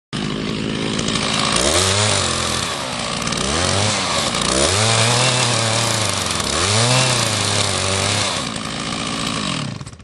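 Two-stroke chainsaw at full throttle cutting into a tulip tree trunk to form the open-face felling notch; the engine pitch dips under load and picks back up about four times as the bar bites. It drops off sharply near the end, when the notch cut is finished.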